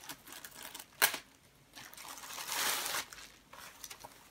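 Plastic-bagged items being handled in a cardboard box: plastic packaging crinkling and rustling, with a sharp click about a second in and a longer rustle in the middle.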